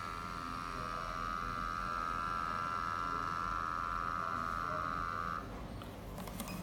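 Sampling pump of a Dansensor headspace gas analyser running steadily as it draws gas through a needle from a coffee capsule for an oxygen test, then cutting off suddenly about five seconds in.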